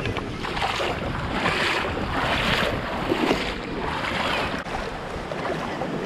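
Water of a mountain stream rushing and splashing, swelling and easing about once a second.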